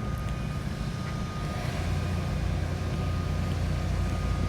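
Low, steady rumble of a motor vehicle's engine running, growing louder about a second and a half in, with a faint steady high tone over it.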